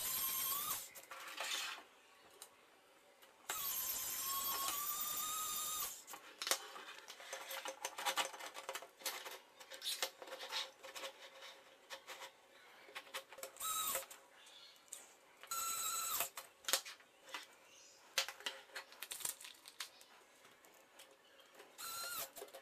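Small electric screwdriver whining in several short runs as it drives screws into 3D-printed plastic chassis rails, the longest run lasting a couple of seconds. Between runs come light clicks and knocks of plastic parts and screws being handled.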